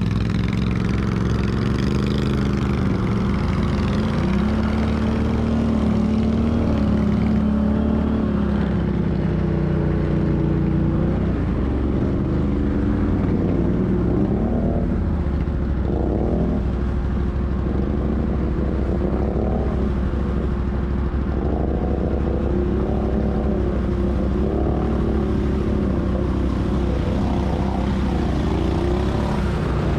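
ATV engine running while riding, its revs rising and falling again and again as the throttle is opened and closed.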